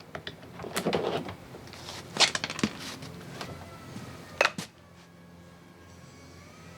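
Scattered clicks and clunks of small outboard recoil-starter parts being handled, with sharper knocks about two and four and a half seconds in, then a faint steady hum.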